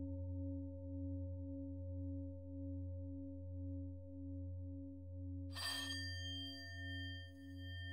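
A singing-bowl drone of low, steady tones that waver in a slow, even pulse. About five and a half seconds in, a higher bell is struck and rings on over the drone.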